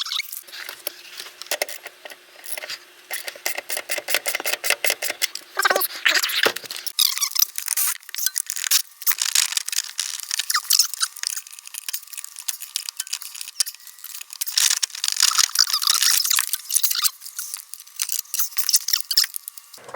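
Hand tools clicking and rattling in quick runs of sharp ticks as the automatic pedal parts are taken out of a car's footwell.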